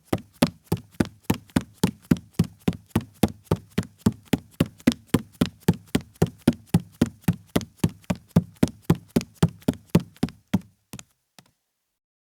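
Barefoot man's footsteps on a wooden floor, quick and even at about four steps a second. They stop near the end with a couple of softer final steps.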